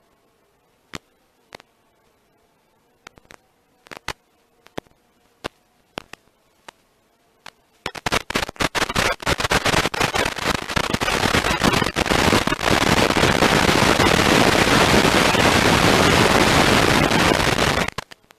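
Radio static from an analog FPV video receiver: scattered sharp pops, then, about eight seconds in, a dense, loud crackling hiss that cuts off suddenly near the end.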